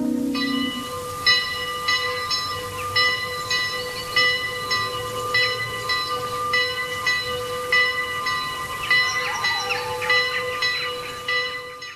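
A bell struck over and over, roughly one and a half strokes a second, over a steady hum, fading out at the end.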